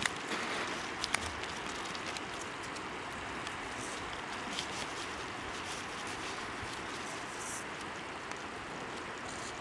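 Steady rushing hiss of shore ambience on a wet tidal mudflat, with a few faint clicks in the first second or so.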